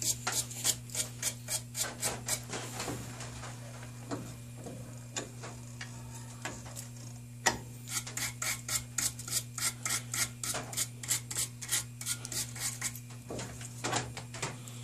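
Hand wire brush scrubbing the threads of a steel stud clamped in a vise, knocking off dried, powdery anti-seize. Quick back-and-forth scraping strokes, about three a second, come in two runs with a quieter pause between them and a sharp click just before the second run.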